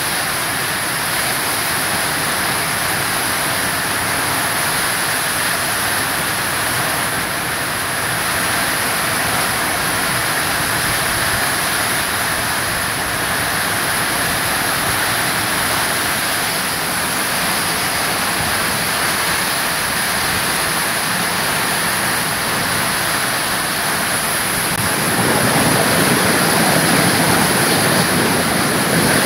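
Heavy rain pouring down steadily, a dense hiss of downpour that swells louder near the end.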